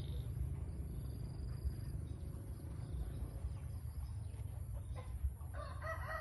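A rooster begins crowing near the end, a loud call with a strong pitched ring, over a steady low rumble.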